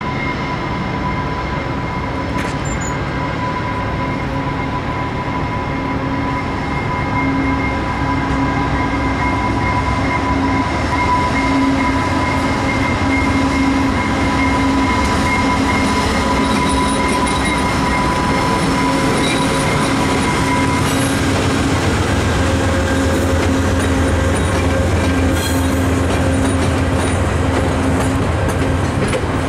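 A GE P42DC diesel locomotive hauling a passenger train out of the station, its engine running steadily while the wheels give a thin, steady squeal on the curved track through the switches. About twenty seconds in the squeal stops and a deeper rumble takes over, with scattered clicking as the passenger cars' wheels roll over the switches and rail joints.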